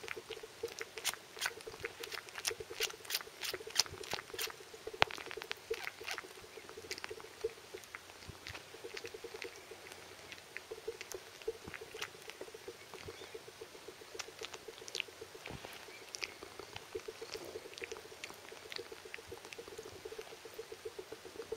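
Cat suckling on a person's fingers: quick wet sucking clicks, several a second, loudest in the first five seconds and fainter after that.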